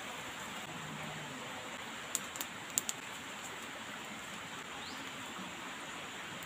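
Steady rush of a shallow rocky stream, with a quick run of four sharp clicks about two to three seconds in.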